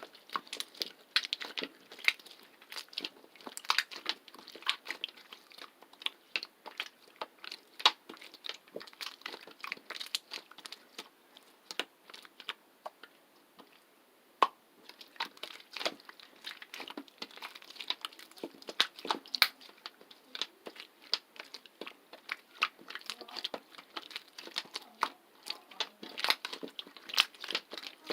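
Slime being squished and pressed by hand, giving dense, irregular crackling clicks and pops, with a sparser stretch about twelve to fourteen seconds in.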